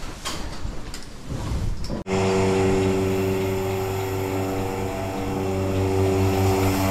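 A few irregular knocks and clatter, then, after a sudden cut about two seconds in, an engine running steadily at an even pitch.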